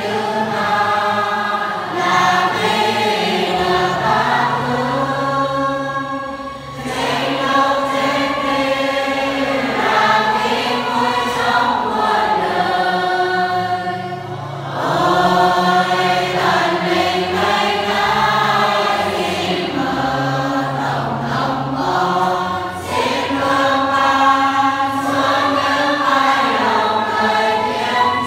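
A church congregation singing a hymn together in slow phrases of long-held notes, with a short break between phrases about every eight seconds.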